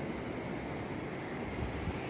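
Ocean surf breaking on the shore, with wind buffeting the microphone.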